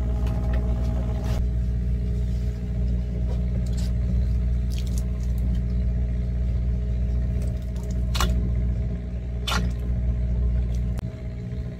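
A fishing boat's engine runs with a steady low hum. Two sharp clicks stand out, at about eight and nine and a half seconds in.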